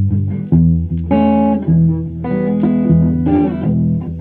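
Electric guitar played through an amplifier: picked chords and notes that change about every half second to a second, with a strong low end. This is an instrumental stretch with no singing.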